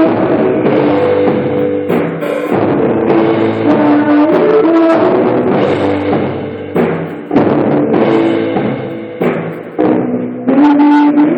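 Live rock band music with a drum kit playing prominently over sustained pitched notes.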